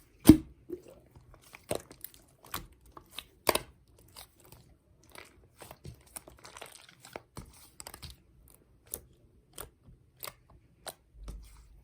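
Slime being squeezed and poked by hand, giving irregular sharp clicks and crackles as air pockets pop. The loudest pops come just after the start and about three and a half seconds in.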